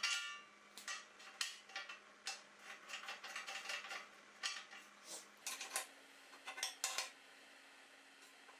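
Steel parts and a spanner clinking and tapping against a steel box-section frame as a sleeve is fitted and a nut is worked. One ringing metal clink comes at the start, then scattered sharp clicks that stop about seven seconds in.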